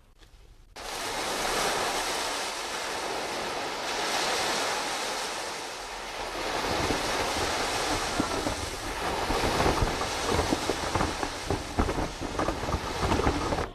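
Sea waves and wind: a steady rushing surge that starts suddenly about a second in, growing rougher and more gusty, with a heavier low rumble, in the second half.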